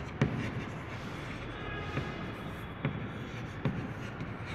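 Chalk writing on a blackboard: steady scratching broken by about four sharp taps of the chalk against the board, the loudest just after the start.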